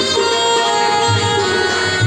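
Live tabla and electronic keyboard playing together. The keyboard holds long melody notes while the tabla's bass drum sounds low, deep strokes, the strongest about a second in.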